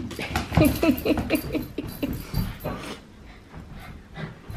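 Australian cattle dogs play-fighting: a quick run of short whining yips, with scuffling on the floor. It starts suddenly, eases off briefly, and picks up again near the end.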